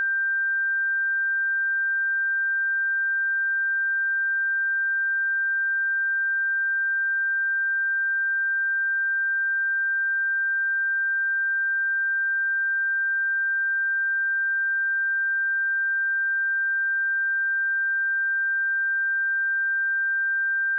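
A steady, unbroken 1575 Hz sine-wave test tone: one pure high-pitched note held at constant level, used to check speakers or headphones.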